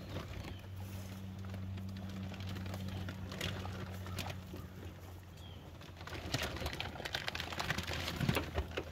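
Cows grazing close by, tearing and chewing grass: a run of short ripping, crunching clicks that grows busier in the last three seconds. A steady low hum underneath stops about five and a half seconds in.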